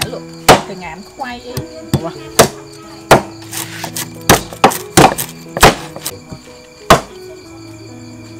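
Cleaver chopping on a thick round wooden chopping block: about nine sharp, irregularly spaced knocks, over background music.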